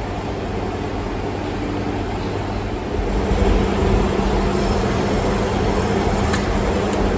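Passenger train running, heard from inside the carriage: a steady rumble with a low motor hum. About three seconds in the rumble grows louder and a new steady hum comes in.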